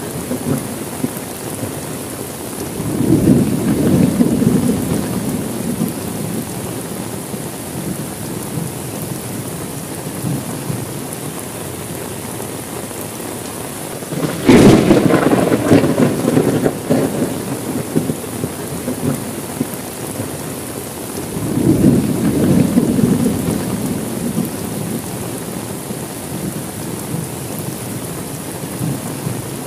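Steady rain with thunder rolling three times: a low rumble a few seconds in, a sharp close crack about halfway through that trails off into a rumble, and another rumble about three quarters of the way through.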